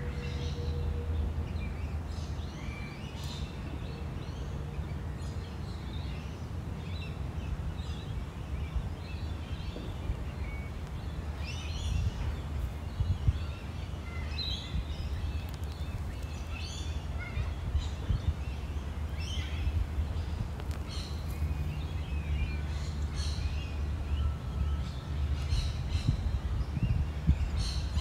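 Australian native birds calling from the surrounding trees, many short scattered calls, over a steady low rumble.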